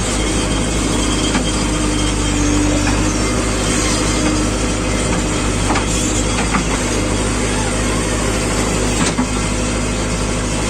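Heavy diesel engine running steadily, with a few sharp knocks in between.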